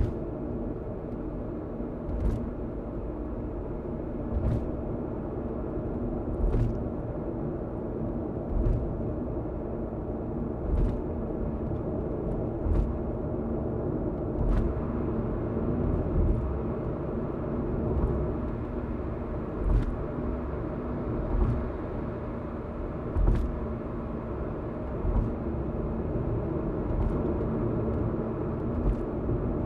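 Car driving at expressway speed, heard from inside: a steady low road and engine rumble, with a short thump about every two seconds as the tyres cross the joints of the elevated expressway.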